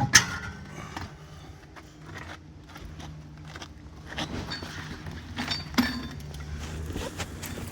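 Scattered metal clinks and knocks of tools and parts being handled during a wheel removal, with a sharp knock right at the start, over a steady low hum.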